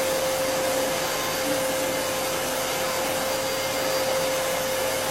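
Vacuum cleaner running steadily: an even rushing noise with a constant hum.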